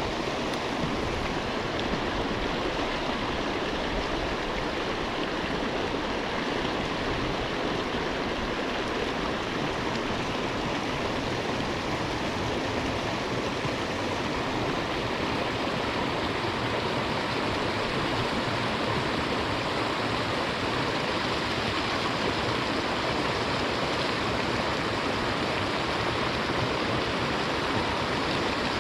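Creek water rushing steadily over riffles, a continuous even rush of flowing water.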